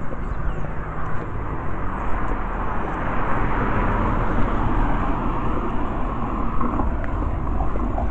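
A passing vehicle, its noise swelling to a peak midway and fading away, over a constant low rumble.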